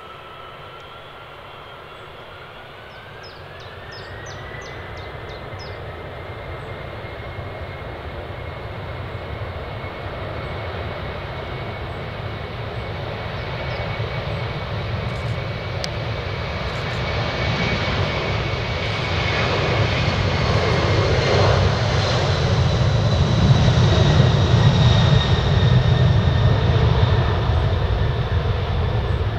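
Large jet airliner's turbofan engines, growing steadily louder as the aircraft comes closer. Loudest a few seconds before the end. A thin whine rises in pitch over the first few seconds, then holds steady above the roar.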